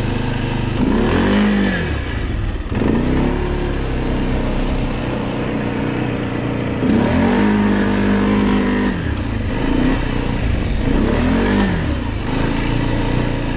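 Arctic Cat 700 ATV engine pulling along under the rider, revving up and easing off again and again, its pitch rising and falling several times.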